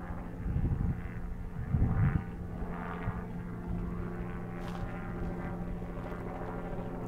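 A steady engine drone made of several even, unchanging tones. Low rumbling bumps come about half a second in and again around two seconds in.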